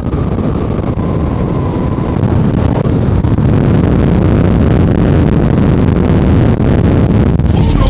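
Cars' engines and exhausts running at speed, mixed with wind and road noise from a moving car. The sound grows louder about two seconds in.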